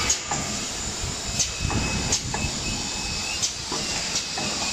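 Automatic snack cartoning machine running: a steady mechanical clatter and hiss, with sharp clacks at uneven intervals of roughly a second as the pushers and flaps move packets into cartons.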